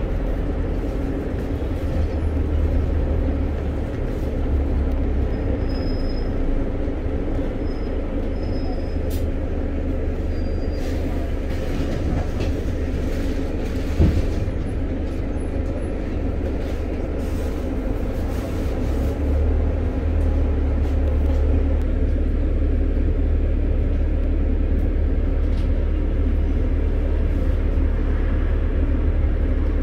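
Low, steady drone of a double-decker bus's engine heard from inside the bus, with one sharp knock about halfway through. In the later part a passenger train rumbles across the railway bridge just ahead, and the low rumble grows louder.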